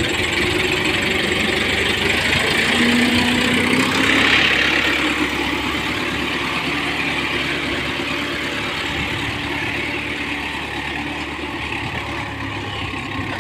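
New Holland tractor's diesel engine running steadily at low revs.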